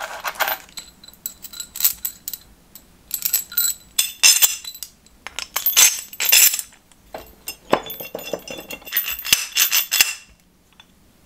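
Metal clamp parts clinking and clacking as they are handled and fitted together: steel threaded rods and nuts knocking against the fabricated clamp jaws. Irregular bursts of sharp clinks that stop about a second before the end.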